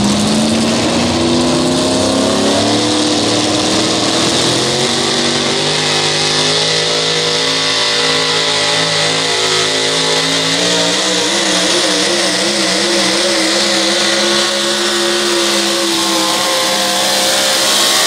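Supercharged engine of a Chevrolet four-wheel-drive pulling truck at full throttle, dragging the sled down the track. Its pitch climbs over the first couple of seconds, then holds high and wavers briefly about two-thirds of the way through.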